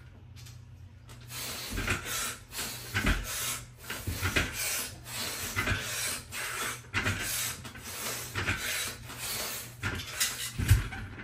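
Hard, rapid breathing and forced exhalations from a man straining through pull-up reps, with a few dull thumps, the loudest near the end.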